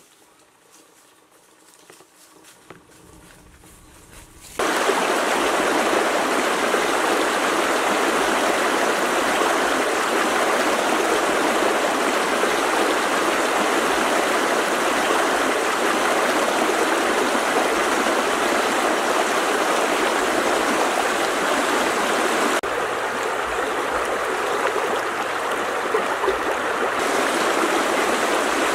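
Shallow river running over stones: a loud, steady rush of water that starts abruptly about four and a half seconds in, after a quiet opening.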